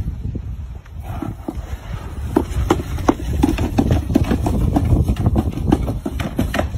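A plastic sled dragged by a rope over wooden steps and a brick path, scraping and knocking irregularly, with the knocks coming thicker from about two seconds in. A low wind rumble on the microphone underneath.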